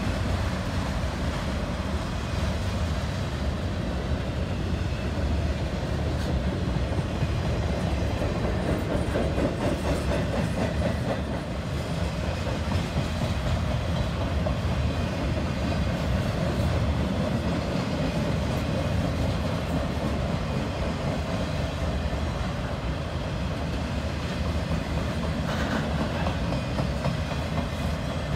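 Freight train cars rolling past, steel wheels running steadily on the rails.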